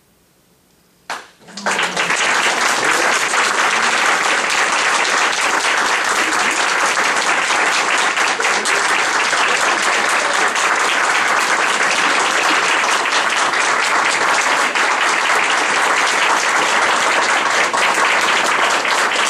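Audience applauding: it breaks out suddenly about a second in after near silence and then holds steady.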